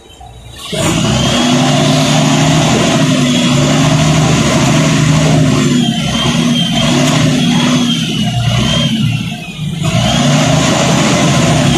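City bus diesel engine heard from inside the passenger cabin, starting up loudly about a second in and pulling hard under load, with a high whine rising and falling above it. The engine note drops briefly near the end, then picks up again.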